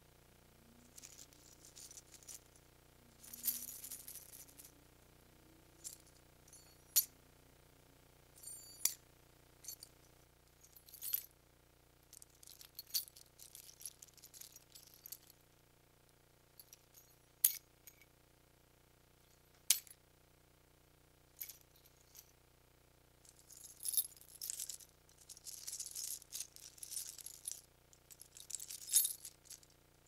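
A bunch of metal keys on a key ring being jingled in repeated short bursts of bright, high-pitched jangling, with single sharp clinks in the pauses between them. The longest stretch of jingling comes near the end.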